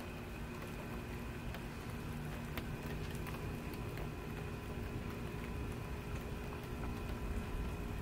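Steady rain falling through the night, with scattered small drip ticks and a faint steady hum of tones beneath it.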